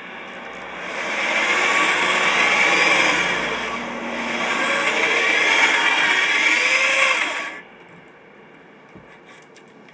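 Power drill spinning a brake cylinder hone inside a brake wheel cylinder, the stones grinding the gritty bore smooth. It runs in two spells of about three seconds with a brief dip between them, then stops sharply.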